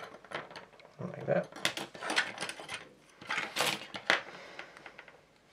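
Narrow yellow masking tape being pulled from its roll in a clear plastic holder, with several bursts of fine crackling clicks.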